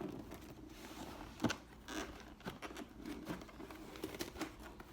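A toy package being worked open by hand: rustling and scraping, broken by a few sharp snaps and clicks, the loudest about a second and a half in.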